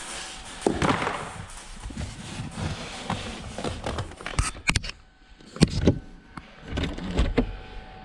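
Hands working in a car's footwell, pulling out a moulded floor mat: rustling and scraping with several sharp clicks and a couple of dull thumps.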